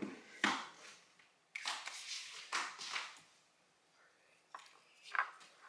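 Soft handling noises at a kitchen counter: a few brief rustles and light taps, with a short quiet spell a little past the middle.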